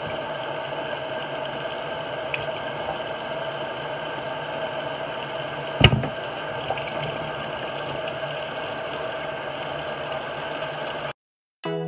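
Bathroom sink tap running steadily, with one sharp knock about six seconds in; the water sound cuts off suddenly near the end.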